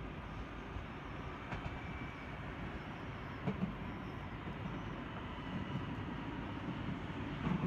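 S-Bahn electric train rolling in along the station tracks, a steady rumble that grows a little louder as it comes near, with a few sharp clicks from the wheels on the track.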